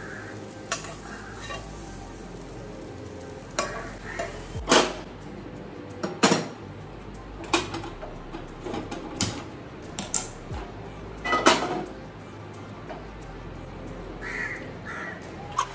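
A metal utensil clinking and scraping against a cooking pan while vegetables are sautéed, with sharp knocks at irregular intervals; the loudest come about five and eleven seconds in.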